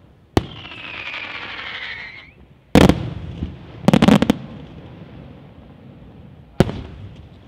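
Di Matteo Fireworks aerial shells going off. A bang is followed by a wavering whistle of about two seconds, then a loud burst about three seconds in, a quick cluster of cracks a second later, and another single bang near the end.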